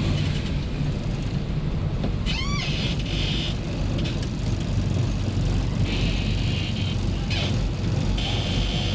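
A road vehicle driving along, a steady low engine and road rumble with a brief squeal about two and a half seconds in.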